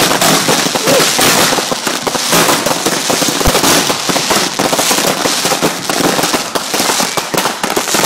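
Fireworks going off in a dense, continuous barrage of rapid crackling pops, too many to count.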